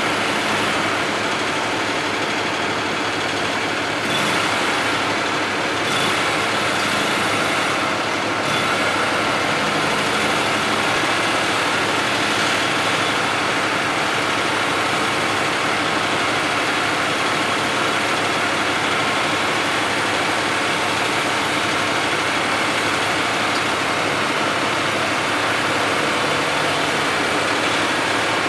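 Engine running steadily, driving the hydraulics of an under-bridge work platform as its lattice tower is tilted out over the bridge rail.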